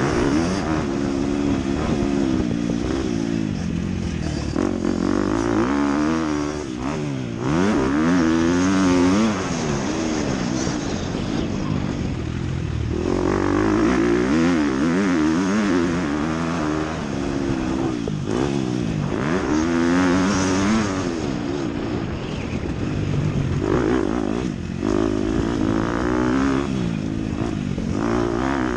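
Dirt bike engine revving up and down again and again as it is ridden hard, its pitch climbing, dropping back and climbing again with the throttle and gear changes.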